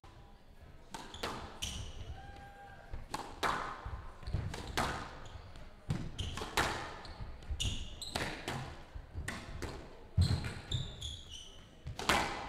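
Squash rally: the ball cracking off rackets and the court walls in quick succession, a sharp hit every second or so. Shoes squeak on the court floor several times in the second half.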